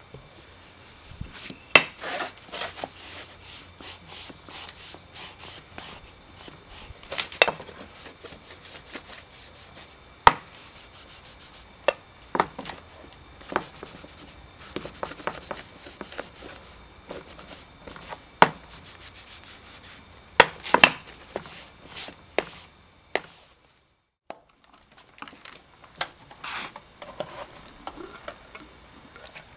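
Cotton cloth rubbing stain into a bare wooden box, with scattered sharp knocks as the box is handled and turned on the table. After a brief quiet spell near the end, clicks of a screwdriver prying at the lid of a metal tin can.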